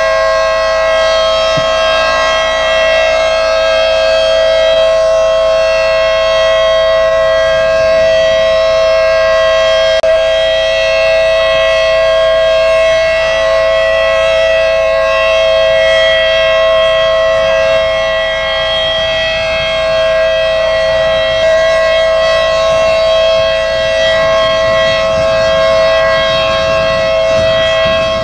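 Outdoor tornado warning siren sounding one steady, unwavering tone with strong overtones.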